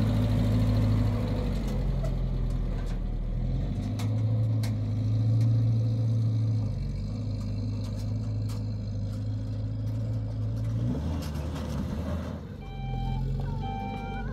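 A pickup truck's engine running as it drives off along a dirt track, its note shifting several times. Near the end a run of short high beeps starts.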